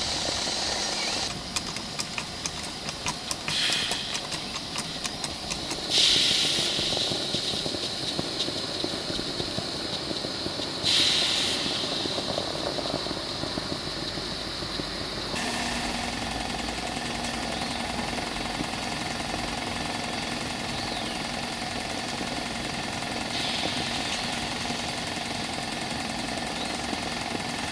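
Stuart Double 10V twin-cylinder model steam engine and its gas-fired vertical boiler running under steam, with fast exhaust beats early on. There are two loud bursts of steam hiss about 6 and 11 seconds in, then a steadier run with a low hum.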